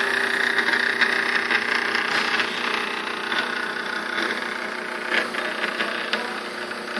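Stepper motor on a homemade CNC machine axis running steadily clockwise, a steady whine of several tones with a few faint clicks, growing slowly fainter.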